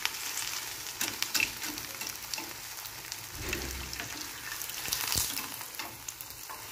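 Potato patty sizzling and crackling in hot oil in a frying pan, with a few light taps and scrapes of a metal slotted spatula against the pan.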